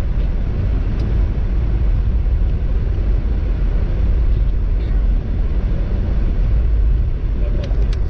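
A car driving along a country road, heard from inside the cabin: a steady low rumble of road and engine noise with a few faint clicks.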